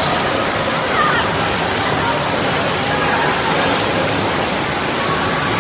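Indoor water park din: a steady rush of running water with faint children's voices and shouts mixed in.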